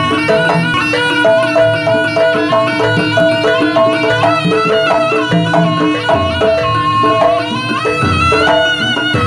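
Live East Javanese jaranan gamelan music. A reedy slompret shawm plays a wavering, bending melody over kendang drumming and repeating notes from the gamelan's metal chimes.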